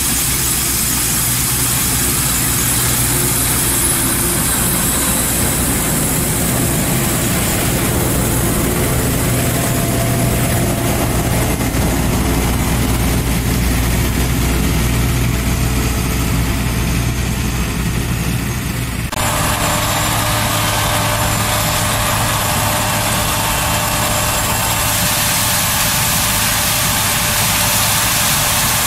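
Claas Lexion 570C combine harvester running while harvesting maize: a steady drone of the diesel engine and threshing machinery, with a hiss over it. About two-thirds of the way through the sound changes abruptly to another take of the machine at work.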